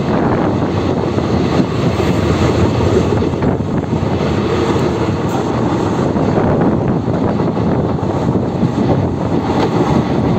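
Loud, steady running noise of a passenger train at speed, heard from on board: the rumble of the coach's wheels on the rails with rushing air.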